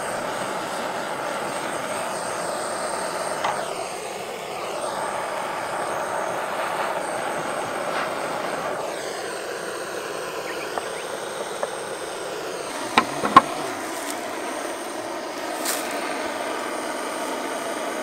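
Handheld butane gas torch burning with a steady hiss as it melts beeswax onto a wooden hive box. There are a few sharp clicks about 13 seconds in; the loudest comes just after.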